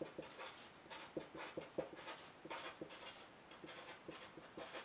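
Felt-tip marker writing block capitals on paper: a faint run of short, uneven pen strokes.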